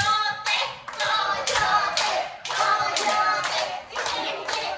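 People clapping in a steady rhythm, about two claps a second, with voices singing over the claps.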